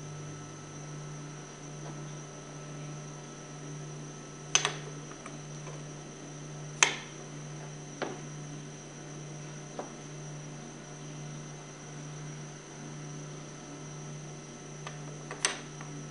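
A few sharp clicks and knocks of pump parts being handled as the remaining oil-seal cartridges are twisted and pushed on, over a steady electrical hum.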